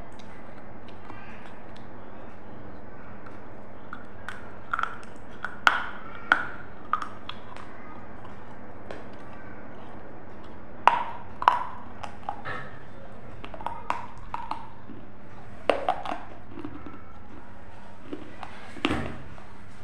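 A person biting and chewing a thin, crisp round cracker: sharp crunches every few seconds, some in quick pairs, over a steady background hiss.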